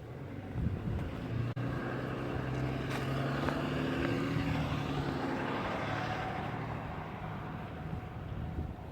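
A motor vehicle passing by: its engine hum and noise swell over a few seconds, peak around the middle, then fade away.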